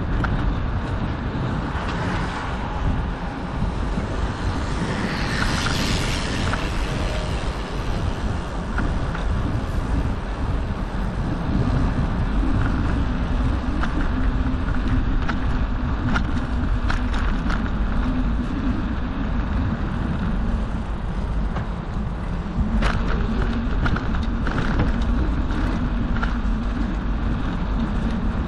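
Bicycle riding noise: tyres rolling on asphalt and wind on the microphone make a steady rumble. A brief louder rush comes about five seconds in, and light clicks and rattles come from the bike later on.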